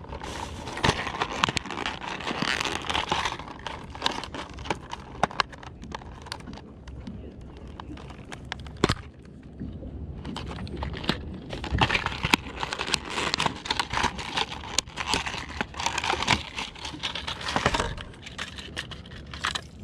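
Plastic fishing-lure packaging crinkling and crackling as it is cut open and handled, with many sharp clicks, in two busy stretches: one near the start and a longer one in the second half.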